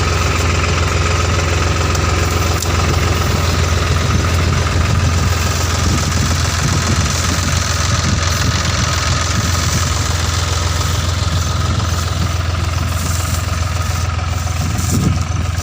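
Tractor engine running steadily at a constant speed, with a deep hum.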